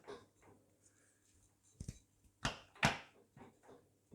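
Several sharp metallic knocks and clicks as the new CV drive shaft's inner end is worked into the transmission until its circlip seats, the loudest between about two and three seconds in.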